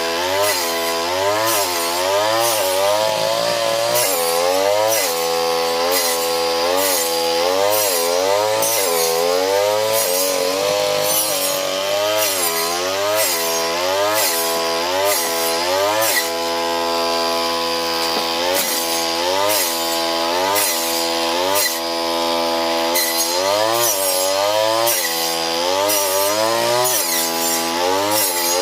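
Small brush cutter engine running hard, its pitch rising and dropping back about once a second as it chops patchouli stalks.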